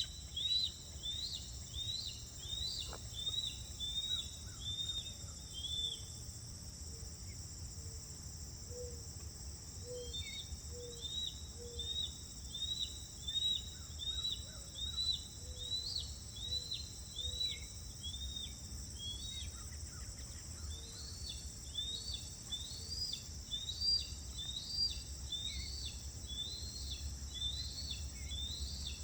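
A bird calling in runs of short chirps, about two a second, with pauses between the runs. Under it, a steady high insect chorus drones, over a low background rumble.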